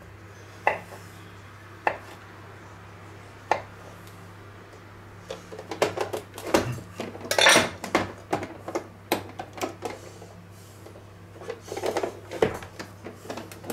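Kitchen utensils clicking and clattering on a countertop: a few single clicks, then a busy run of knocks and rattles in the middle and again near the end, as a knife is laid on a wooden cutting board and a plastic vegetable dicer is handled.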